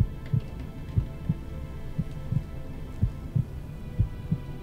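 Heartbeat sound effect in a film soundtrack: a slow double thump about once a second, over a steady droning music bed.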